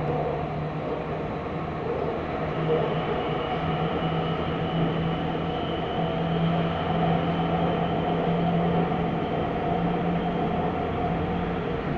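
Athens Metro Line 1 electric train running along the track, heard from inside the carriage: a steady rumble with a low hum, joined by a faint high whine a couple of seconds in.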